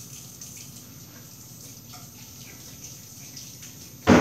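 Steady hiss of background noise, then one sudden loud knock about four seconds in.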